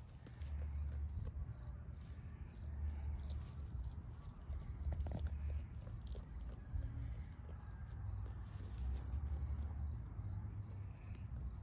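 Sheep grazing on dry grass and hay, tearing and chewing it with scattered soft crunches and crackles.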